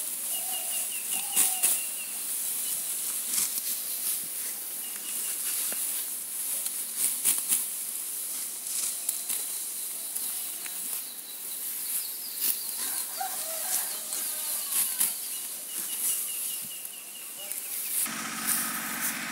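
Rustling and crackling with birds chirping in short repeated trills. Near the end a steady motor hum starts.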